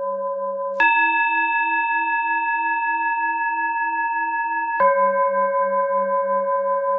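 Tibetan singing bowls ringing as a breathing timer. The lower bowl's tone, with a slow wavering beat, gives way about a second in to a higher bowl struck and ringing for about four seconds, the cue to breathe in. The lower bowl is then struck again, the cue to breathe out.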